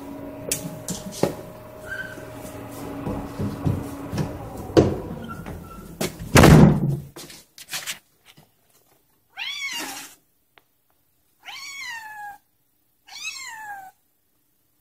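A domestic cat meows three times in the second half, each call rising then falling in pitch. Before that, a run of knocks and bumps ends in a loud thump about six seconds in.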